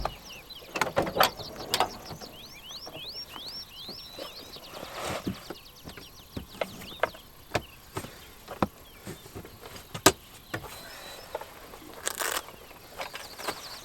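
Outdoor natural sounds: a bird singing a quick run of repeated chirping notes a few seconds in, with a fainter run near the end, amid scattered sharp clicks and knocks and a short burst of noise near the end.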